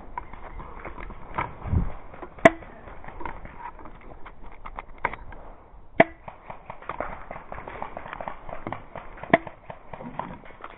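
Airsoft guns firing single shots at close range, a sharp crack every three to four seconds, with fainter clicks and ticks of other airsoft fire between them.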